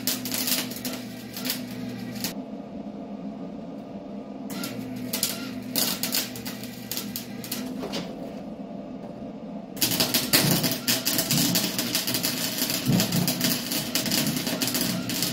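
Welder arc crackling on steel in three separate welds: a short one that stops about two seconds in, another a few seconds long in the middle, and a longer one that starts about ten seconds in.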